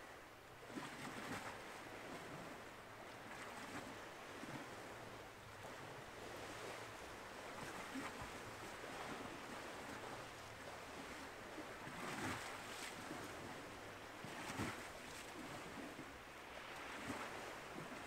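Choppy lake water lapping and washing against a concrete pier, mixed with wind on the microphone. A few louder swells rise out of it, the biggest about twelve and fourteen and a half seconds in.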